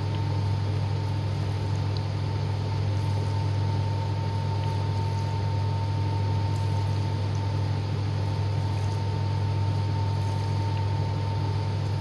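Koryo countertop dishwasher running its wash cycle: a steady low hum from the wash pump, with the hiss of water spraying inside and a thin steady whine.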